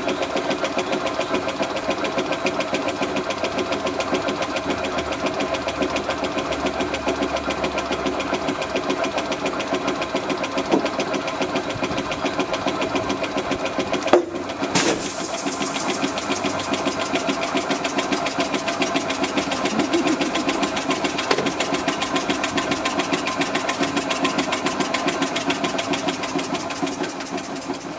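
High-pressure water pump running steadily with a fast, even pulsing beat as it pressurises a car tyre with water for a burst test. Two sharp cracks come close together about halfway through.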